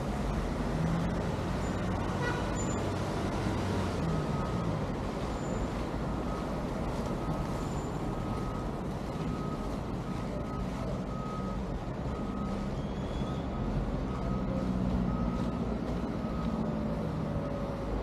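Street traffic, with motor vehicles running. Over the top, an electronic beep repeats evenly, about one and a half times a second, for roughly ten seconds in the middle, like a vehicle's reversing alarm.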